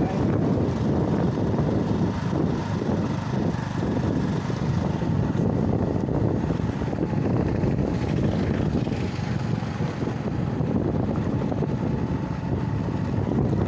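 Steady rumble of a moving road vehicle, engine and tyre noise with wind buffeting the microphone.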